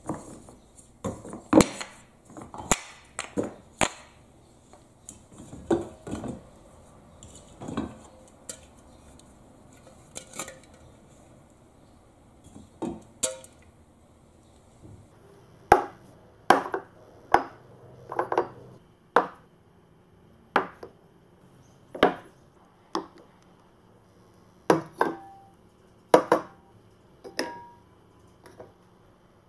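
Wooden blocks and aluminium drink cans knocking and clacking as they are picked up and set down by hand. It comes as a series of irregular sharp knocks, some with a brief ring.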